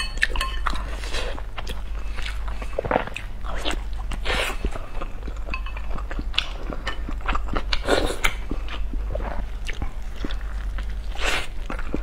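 Close-miked biting and wet chewing of a large steamed bun soaked in chili-oil sauce: irregular smacking, squelching mouth sounds over a steady low hum.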